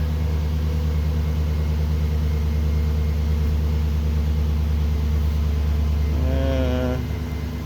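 2011 Chevrolet Silverado's 5.3-litre V8 idling steadily after the chewed wiring to cylinder 7's fuel injector and ignition coil was repaired. A brief voice is heard about six seconds in.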